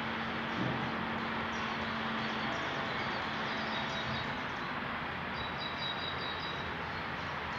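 Small birds chirping in groups of quick high calls, over a steady outdoor background noise. A low steady hum is also heard for the first two seconds or so.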